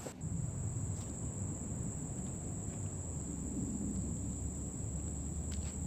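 Insects, likely crickets, chirring in one steady high-pitched drone, over a low continuous rumble.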